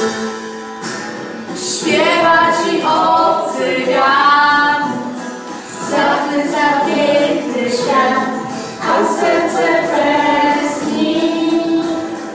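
A girl singing a song solo in phrases over musical accompaniment.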